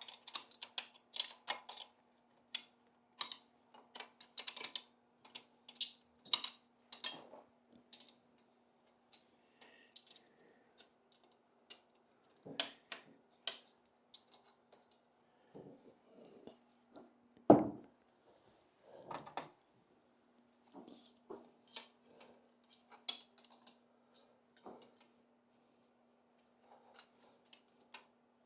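Small steel parts and hand tools clicking and clinking as nuts and washers are fitted to the cylinder base of a Triumph motorcycle engine, with one heavier knock about two-thirds of the way through.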